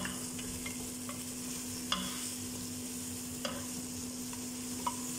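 Fish pieces sizzling in hot oil in an aluminium pot while a wooden-handled spatula stirs them, knocking against the pot four times about a second and a half apart. The fish is being fried down in its own oil until dry.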